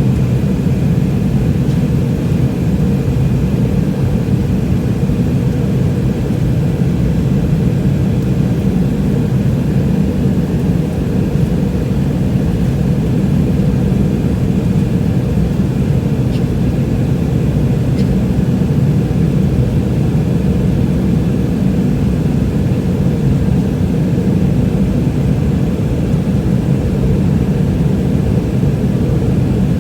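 Steady, loud cabin noise inside a McDonnell Douglas MD-88 jetliner from its rear-mounted Pratt & Whitney JT8D turbofan engines and the airflow, a deep even rumble that does not change.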